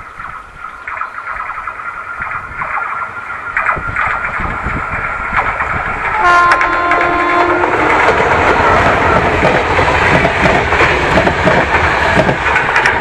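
A Renfe class 269 electric locomotive approaches with a high ringing from the rails that grows steadily louder. About halfway through it sounds its horn once, a pitched blast of about a second and a half. Then the loco and its coaches pass close by with loud wheel-and-rail noise and clatter.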